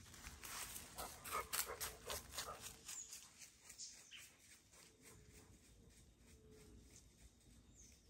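A dog panting close by, quick breaths about three or four a second, fading away after about three seconds.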